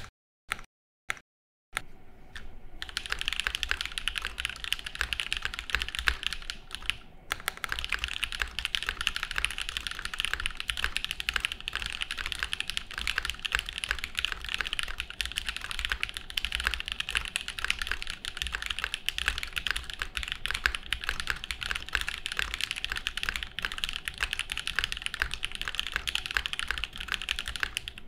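Typing on an Ion Zenith custom mechanical keyboard with lubed NovelKeys Cream linear switches, an aluminium plate and GMK keycaps: clacky keystrokes. A few single key presses with gaps come first, then fast continuous typing, with a short pause about seven seconds in.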